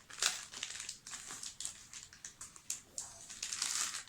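Snack wrapper crinkling and rustling in irregular crackles as it is handled and opened.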